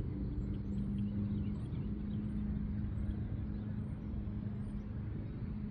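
Steady low engine hum and rumble of motor traffic. A thin, high chirp repeats faintly about once a second over it.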